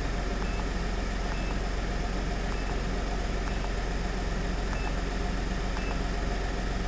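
Skoda Fabia 1.4 PD TDI three-cylinder diesel idling steadily at about 900 rpm, still warming up, with coolant at about 53 °C. Faint short beeps come now and then.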